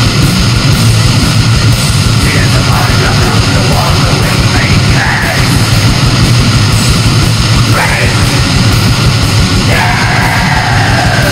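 Loud, heavily distorted heavy-metal-style music: a dense, noisy wall of sound over a steady low drone, with a few short sliding tones cutting through.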